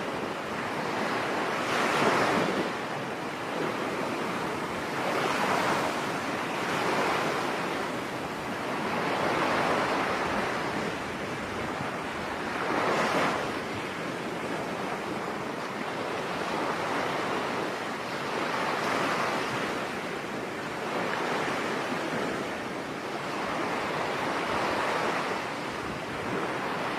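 Sea waves washing onto a beach: a steady rush of surf that swells and ebbs every three to four seconds.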